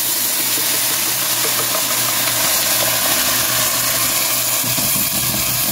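Steady sizzling hiss of blended chile sauce hitting fried fideo noodles in a hot pot as it is poured in through a plastic strainer.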